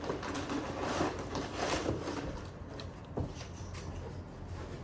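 Cardboard box and packing being handled and opened: soft rustling and scraping, with a sharper click about three seconds in.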